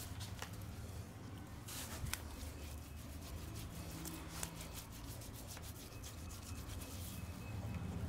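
Hands rubbing and massaging a back slick with lather, a continuous wet rubbing with many small clicks and crackles from the foam on the skin.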